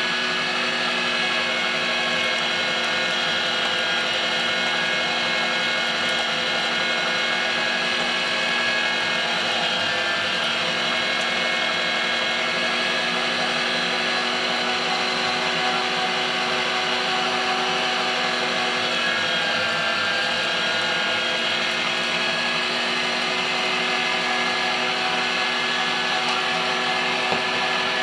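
Electric meat grinder running steadily as venison is ground into burger, its motor giving an even, pitched hum.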